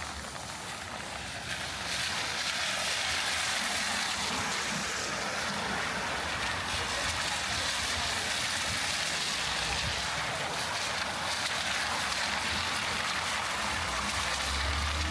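Heavy rain falling on a city street, a steady hiss that grows louder about two seconds in. A low hum comes in near the end.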